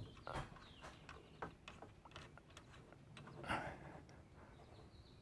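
Faint, irregular small metallic clicks and taps as a nut is started by hand on the drag link's stud at the pitman arm, with a brief louder scuff a little past halfway.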